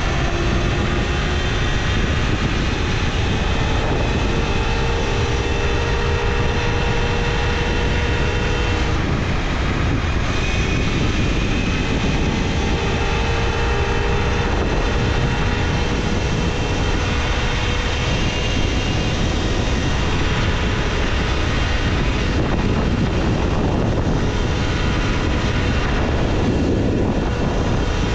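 Talaria Sting R electric dirt bike being ridden: a thin motor whine that rises and falls gently with speed, under a steady rush of wind noise on the microphone.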